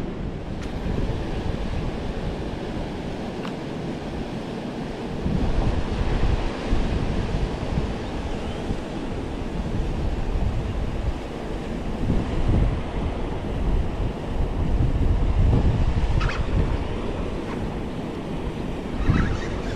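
Wind buffeting the microphone, a low rumbling rush that swells and fades, over moving water. A few faint ticks come near the end.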